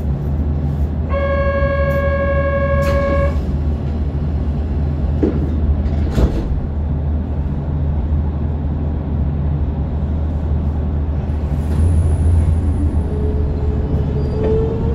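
Kobe Electric Railway 5000-series train standing at a station with its on-board equipment humming steadily. A single held tone sounds for about two seconds a second in, and there are a couple of clicks around five and six seconds in. Near the end the Mitsubishi GTO VVVF inverter starts its slowly rising whine as the train begins to pull away.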